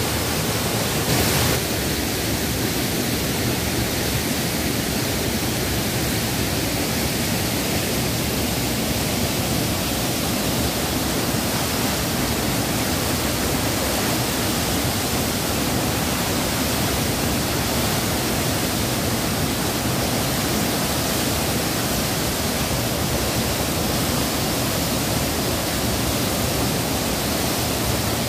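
Small waterfall pouring into a rocky river pool: a steady rush of falling and churning water.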